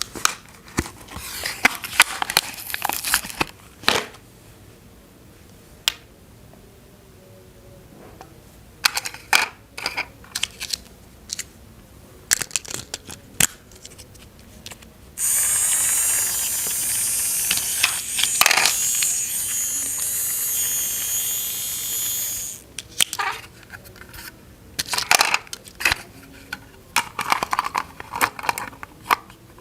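Toy packaging and plastic toy parts being handled: scattered clicks and crinkles. From about fifteen seconds in, a steady high whir, like a small electric motor, runs for about seven seconds and then stops.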